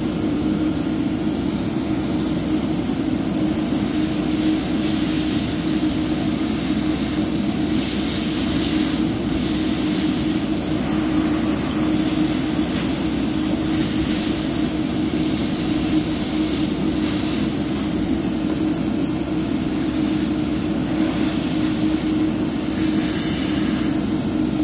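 Steady electric motor hum of an airbrush painting setup, with a soft hiss of the airbrush now and then as thinned paint is misted onto the plastic model.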